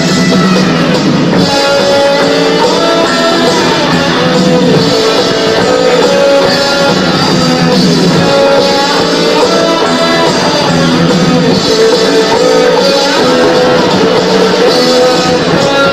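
Rock band playing loud and live, with electric guitar holding and bending notes over a drum kit.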